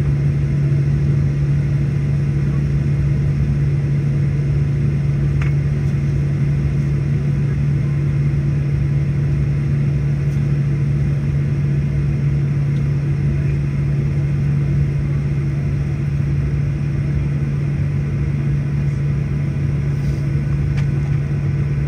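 Steady low drone of a jet airliner's cabin, its engines idling and air-conditioning running while the aircraft sits stopped.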